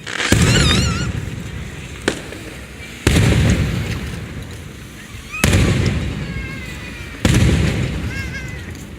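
Aerial fireworks shells bursting: four big booms roughly two seconds apart, each rolling away slowly, with a single short sharp crack between the first two.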